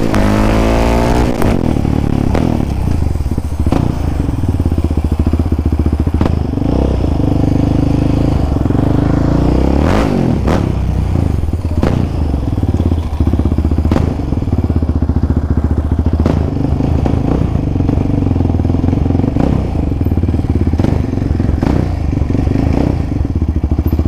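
Quad bike engine running as it is ridden, its revs dropping in the first second and then holding fairly steady, with frequent short knocks and rattles over it.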